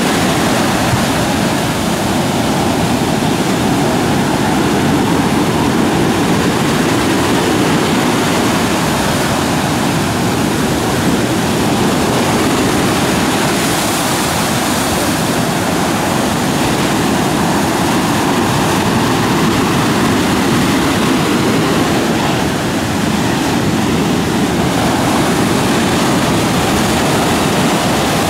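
Rough surf breaking and washing up a beach: a steady, loud rush of water.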